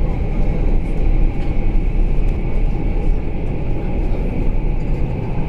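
Passenger train running, heard from inside the carriage: a steady low rumble with a constant higher hiss over it.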